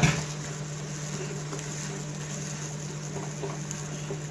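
Chopped onion and tomato mixture sizzling softly in a kadai over a low flame, with faint crackles. A steady low hum runs under it, and there is a single knock right at the start.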